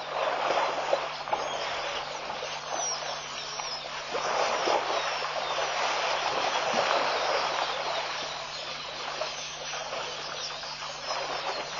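Water splashing and sloshing as elephants wade and play in a shallow muddy waterhole, a rough, uneven splashing that grows a little busier about four seconds in.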